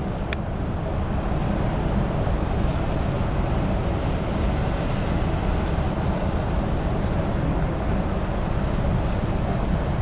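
Steady low rumble of boat engines on the water, mixed with wind on the microphone. There is a brief click just after the start.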